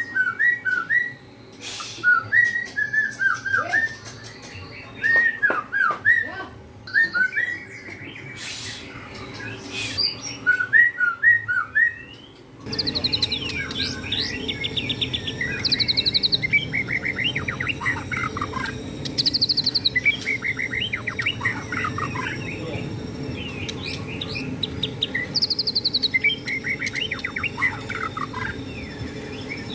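White-rumped shama (murai batu) singing loudly in phrases of whistles and chirps. About 13 seconds in the background changes abruptly and the song turns to quicker repeated trills over a steady low hum.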